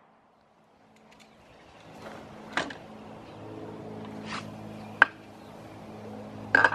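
Near silence at first, then a steady low hum that fades in and holds, broken by four short sharp clicks.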